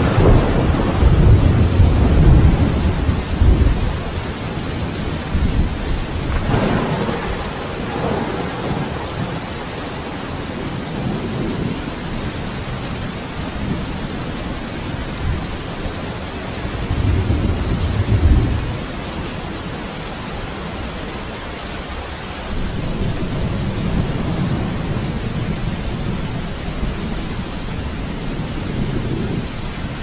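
Thunderstorm: steady rain hissing, with deep rolls of thunder. The strongest roll comes in the first few seconds, another about a third of the way in, and a strong one a little past the middle.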